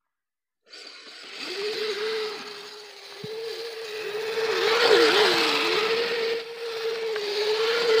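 Kyosho Blizzard RC snow tractor's two Traxxas Titan 380 brushed electric motors whining as it drives through snow, over a rushing noise from its gears and plastic tracks. The sound starts suddenly about three-quarters of a second in, and the whine holds one pitch that wavers and dips now and then.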